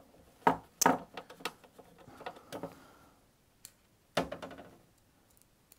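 Small screws being handled and driven with a magnetic hand screwdriver on a battery-box lid: a run of light clicks and taps in the first second and a half, then a sharper knock about four seconds in.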